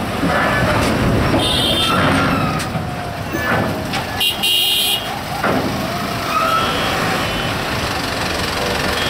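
Heavy trucks and motorcycles driving at a ferry ramp, engines running steadily, with short horn toots about one and a half seconds in and again around four and a half seconds, and voices calling.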